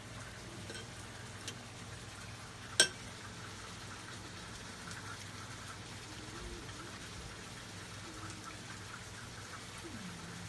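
Faint steady hiss over a low hum, with one sharp clink about three seconds in, like a spoon against a bowl as the fish-sauce dip is tasted.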